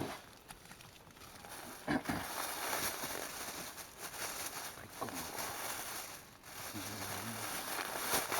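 Rustling and handling noise close to the microphone, with a few sharp knocks: gear being handled while things are prepared for baiting the ice holes.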